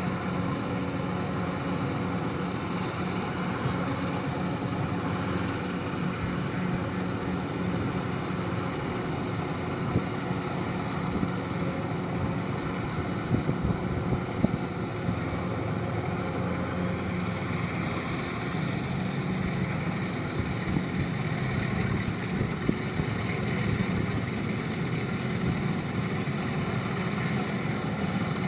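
An engine running steadily at an even speed, with a few short knocks about halfway through.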